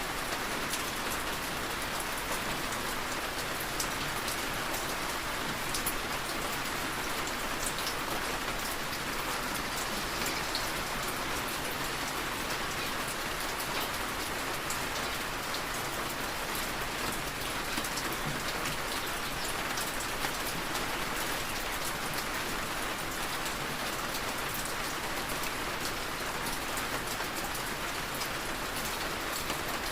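Steady rain falling and pattering, with many fine drop ticks, heard as rain tapping on a window.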